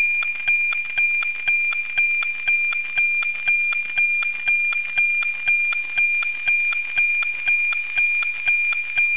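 NOAA-19 weather satellite's APT image signal, FM-demodulated from 137.1 MHz by an RTL-SDR receiver: a steady high tone with a sharp tick-tock twice a second. The ticks are the sync pulses that begin each scan line of the picture being sent down.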